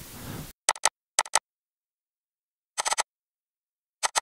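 A few sharp computer keyboard and mouse clicks in short pairs and clusters, four groups in all, separated by dead silence.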